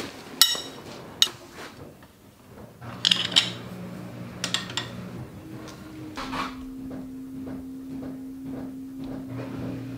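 Clinks and knocks of bent steel tube links being handled and fitted against a motorcycle's leaf-spring front suspension, a handful of sharp metal taps in the first half or so and fainter ones after.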